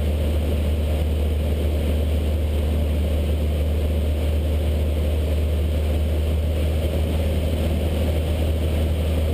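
Cessna 152's four-cylinder Lycoming O-235 engine and propeller droning steadily in flight, heard inside the cockpit. The low drone and the noise above it hold an even level throughout.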